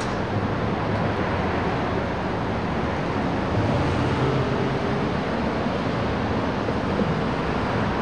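Steady rumble of city street traffic, swelling slightly about halfway through.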